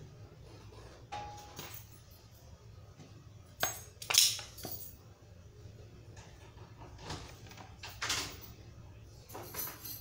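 Workbench handling noises: a few scattered clinks and knocks of metal tools and parts being handled and set down, the loudest about four seconds in, while a plastic PET bottle is picked up.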